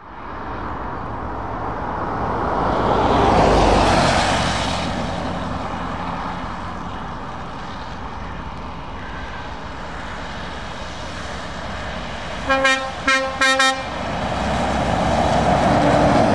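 Lorries and a van passing on a wet road: engines running and tyres hissing on the wet tarmac, swelling as vehicles go by about three and a half seconds in and again near the end. About twelve seconds in, a truck horn gives three short toots.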